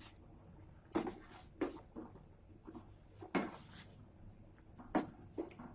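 Kitchen pot and utensils knocking and clinking, several sharp knocks with a longer scrape about halfway through, as a pot of boiled-down herbal decoction is handled.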